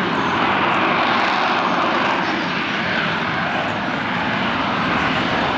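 Harrier jump jet's Pegasus turbofan giving a steady, loud jet noise as the aircraft hovers on vectored thrust during a vertical landing.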